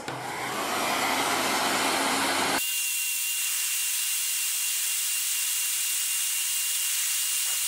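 Heat gun set to about 200 degrees blowing hot air onto a TPU 3D-printed part, a steady rushing hiss. About two and a half seconds in the sound changes abruptly, losing its low rumble and leaving a high hiss with a thin steady whine.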